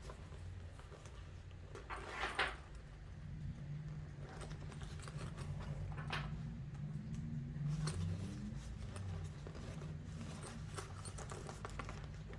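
Needle and thread being drawn through travel-bag fabric during hand-stitching at a zipper end, with two short swishes of the pulled thread about two and six seconds in and small clicks and rustles of handling between them, over a low steady hum.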